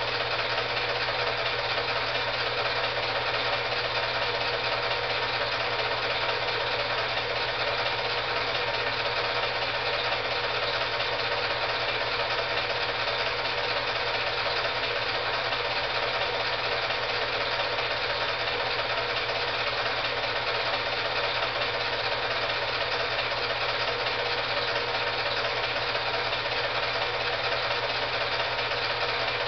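Film projector running: a steady mechanical whir with a low hum underneath, unchanging throughout, picked up as the old silent film was projected and transferred.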